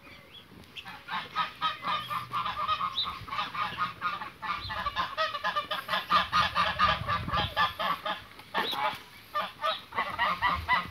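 A flock of domestic geese honking, many short calls coming several a second and overlapping, with a brief lull about eight seconds in.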